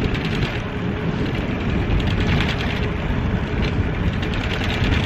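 Wind rushing over the microphone and tyre noise from a recumbent trike rolling along a paved trail.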